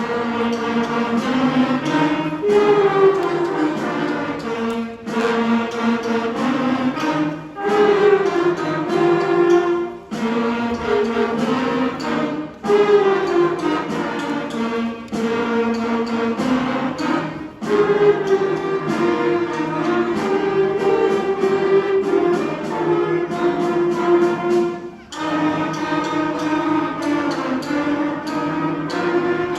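Middle school concert band playing sustained wind and brass chords in short phrases, each about two and a half seconds long and separated by brief breaks. The music comes in suddenly at the start.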